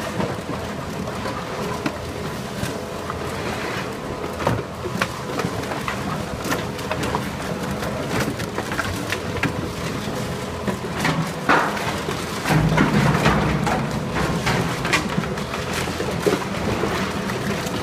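Cleated incline conveyor feeding empty plastic PET bottles into a PET compactor: a steady machine hum under constant crackling and clattering of the plastic bottles. A louder low rumble comes in for a second or two about two-thirds of the way through.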